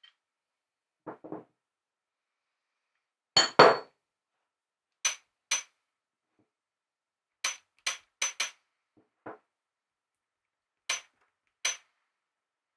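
Metal parts of a sailboat winch being handled: a series of short metallic clinks and knocks, several with a brief ring, mostly in pairs, with one heavier knock about three and a half seconds in.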